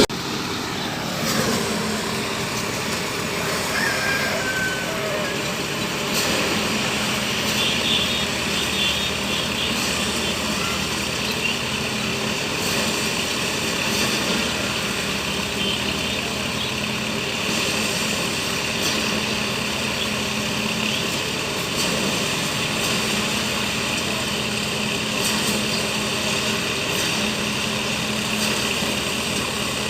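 Engine-driven rice thresher running steadily at a constant speed.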